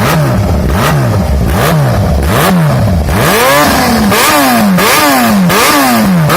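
Yamaha XJ6's 600 cc inline-four, breathing through a full aftermarket sport exhaust, revved loud in quick repeated throttle blips, the pitch leaping up and falling back over and over.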